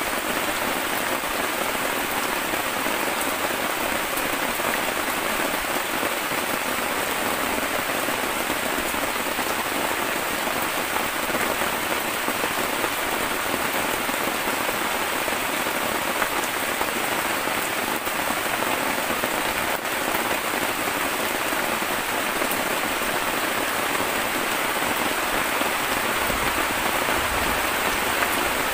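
Steady heavy rain falling on the flysheet tarp overhead and the rainforest around it.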